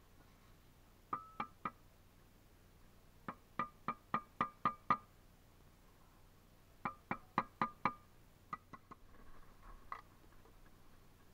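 Steel brick trowel tapping bricks down into their mortar bed, sharp ringing taps in quick runs of several, with a few lighter taps near the end.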